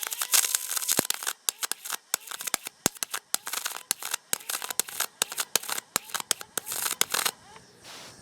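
MIG welder arc crackling and popping unevenly in rapid spurts, stopping about seven seconds in. With the wire feed turned down it is not welding well.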